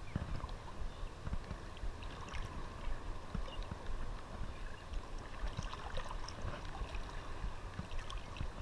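Calm surf water sloshing and lapping around a wading angler, with scattered small ticks and splashes.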